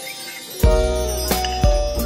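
Background music: held melody notes, joined about half a second in by a deep bass and drum beat.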